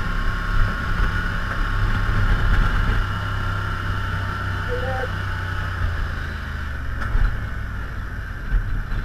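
ATV engine running steadily at cruising speed while riding over a wooden plank bridge, with a steady hiss of wind and road noise; the engine note shifts slightly about six seconds in as the quad rolls onto gravel.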